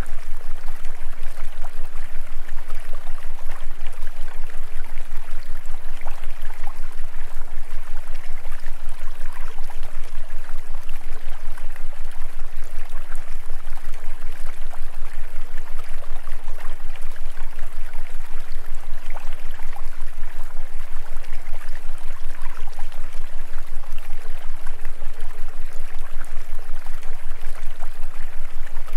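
Steady sound of rushing stream water, with a low steady hum beneath it and a fast, even pulsing in level.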